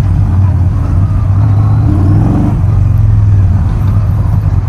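Yamaha XV950R's air-cooled V-twin engine running under throttle at low speed. About two seconds in it rises in pitch, then drops back to a steady note.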